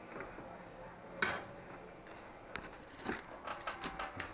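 Clattering clicks and knocks of hard wood and metal being handled: one sharp click about a second in, then a quick run of knocks near the end.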